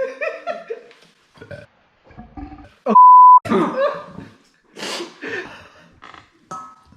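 A loud, steady single-tone bleep lasting under half a second about three seconds in, the kind laid over a word to censor it. Around it are short vocal noises, burp-like grunts and muttering.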